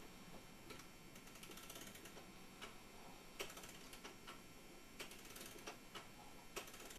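Antique clock mechanism clicking and ratcheting: faint, irregularly spaced clicks with a few quick ratchety runs, as the gear train is worked by hand.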